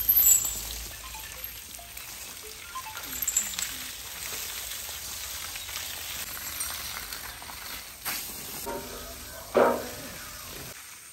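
Water from a garden hose spraying onto an elephant's wet hide and splashing to the ground, a steady hiss. About nine and a half seconds in, a short loud call with a clear pitch rises over it.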